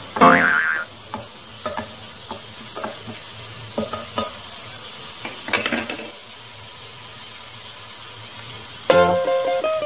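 Chopped vegetables sizzling in oil in a stainless steel sauté pan, stirred with a wooden spatula that scrapes and taps the pan every so often. Music ends shortly after the start and comes back near the end.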